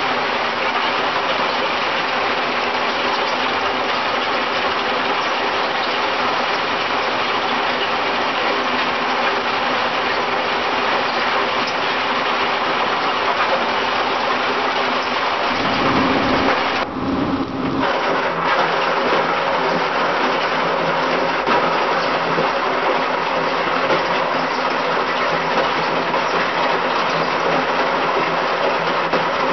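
Hydraulic rock-crusher attachment running steadily, crushed stone pouring out of its discharge ports in a continuous hiss and rattle over the machine's drone. About halfway through, the higher sound thins out for roughly two seconds and a lower rumble comes forward.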